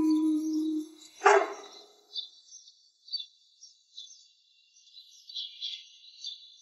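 A held tone ends within the first second, then a dog barks once, sharply, a little over a second in. Faint, scattered bird chirps follow for the rest of the time.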